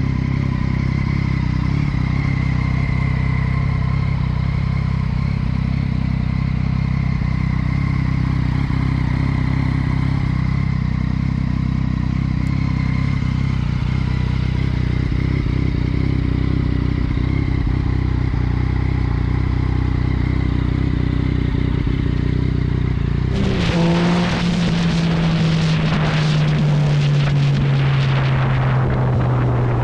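Yamaha MT-09's 847 cc inline three-cylinder engine idling steadily. After a cut about 23 seconds in, the bike is under way and its engine note slowly falls, with wind noise on the microphone.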